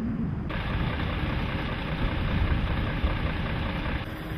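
Diesel engine of a Mercedes-Benz fuel tanker truck idling, a steady low rumble with a rattly hiss over it.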